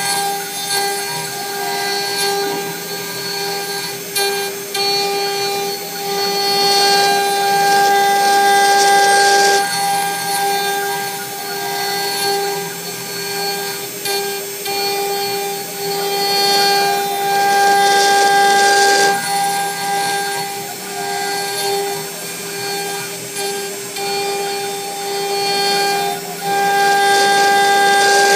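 CNC router spindle running with a steady high whine while its bit carves a wooden blank turned on the machine's rotary axis. The rougher cutting noise rises and falls every few seconds as the cut goes on.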